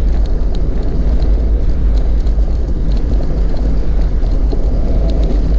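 Vehicle driving on a rough gravel road: a steady, heavy low rumble of engine and tyres, with scattered light ticks and rattles over it.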